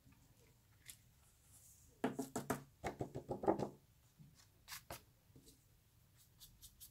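A stamped paper card is tapped and shaken to knock loose embossing powder off onto a plastic sheet. A quick run of light knocks and rattles comes about two seconds in, followed by a few faint clicks.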